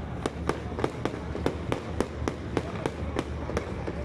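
Aerial fireworks bursting overhead in an even series of sharp bangs, about three a second, over a steady low rumble.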